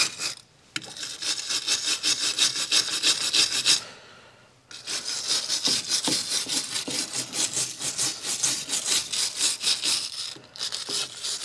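Rapid back-and-forth hand scrubbing of loose rust and corrosion from a wheel-hub knuckle bore, about five rasping strokes a second, with two short breaks.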